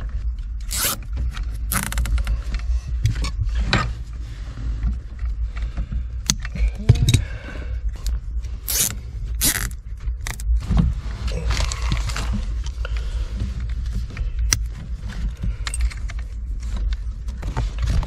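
Irregular scraping and rasping of wires being pulled and handled under a truck's dashboard, over a steady low hum.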